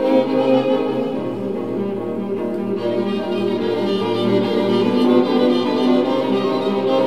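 Music of bowed strings playing long, held notes layered over one another.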